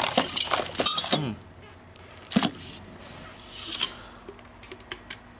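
Metal drill bits and tooling clinking against each other as they are handled in a tool-chest drawer, then a single sharp clack about two and a half seconds in and a few light clicks.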